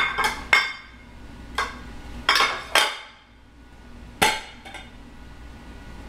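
Aluminum cooking pan and utensil knocking and clinking as a baked dish is flipped out of the pan: about eight sharp metallic knocks with a short ring, the loudest at the start and about four seconds in.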